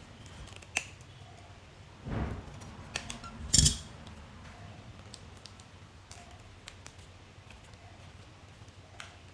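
Scattered clicks and knocks of small hard objects being handled, with the loudest sharp knock about three and a half seconds in.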